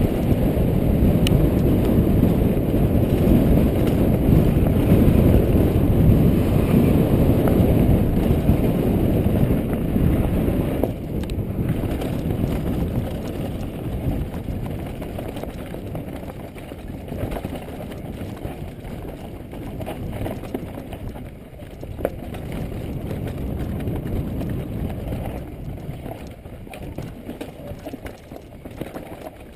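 Wind rushing over the microphone, mixed with the tyre roar and rattle of a downhill mountain bike running fast over rough trail. It is loudest for the first ten seconds or so, then eases, with one sharp knock about 22 seconds in.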